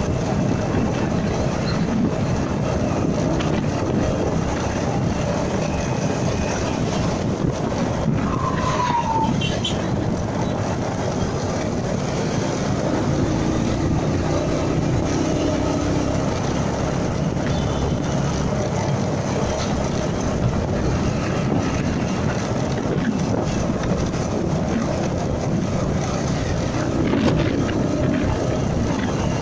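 Steady riding noise from a motorcycle moving through traffic at about 45 km/h: engine, road and wind rush, with other motorcycles and trucks around it. A brief falling tone sounds about eight seconds in.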